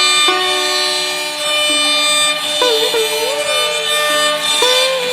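Background music: a melody of long held notes that slide from one pitch to the next.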